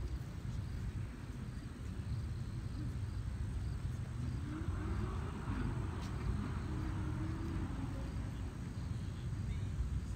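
Steady low outdoor rumble, with faint wavering distant tones in the middle.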